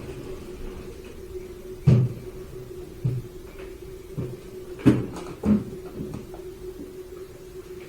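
Several knocks and thumps from household objects being handled, like cupboard doors and things being set down, with the loudest about two seconds in and again about five seconds in, over a steady low hum.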